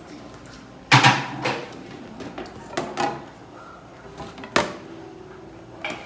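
Kitchenware being handled on a table: a sharp knock about a second in, then a few lighter clacks and another knock near the end.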